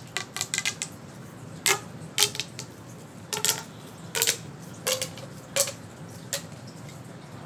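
Plastic fidget toy being clicked or popped by hand: a quick run of sharp clicks, then single clicks every half second to a second, stopping about six and a half seconds in.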